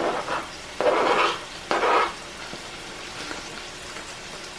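Garlic going into melted butter in a hot pan: two short bursts of noise about a second apart, then a steady low sizzle.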